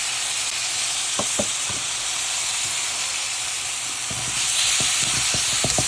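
Onions and spices frying in hot oil in a pan, sizzling steadily, with curry leaves just added. A few clicks early on, then from about four seconds in a spoon knocks rapidly against the pan as the mixture is stirred.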